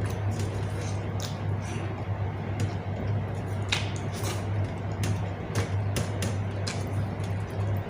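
A person eating close to the microphone: chewing, with short crisp clicks and crunches at irregular moments, over a steady low hum.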